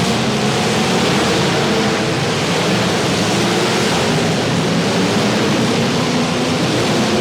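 Loud, steady wash of many demolition derby car engines running together, unmuffled, with no single engine standing out.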